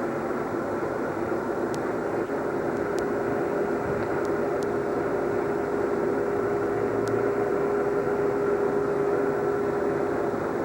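Steady mechanical drone with one steady hum running through it, growing a little stronger in the second half.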